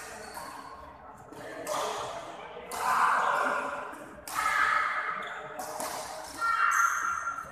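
Sneakers squeaking on a badminton court floor in short bursts, with indistinct voices in the hall, between rallies.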